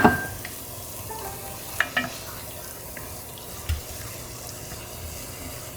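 Mirepoix and tomato paste sizzling softly in a pan after a splash of white wine, with a sharp clink right at the start and a few light clicks later.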